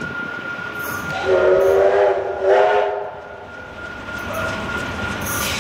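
Victorian Railways K-class steam locomotive whistle: a blast of about a second followed straight away by a shorter second blast, over the rumble of the approaching train.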